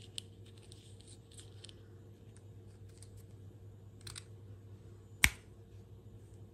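Faint clicks and rustles of fingers handling a small plastic toy car and setting it down, with one sharp, loud click about five seconds in.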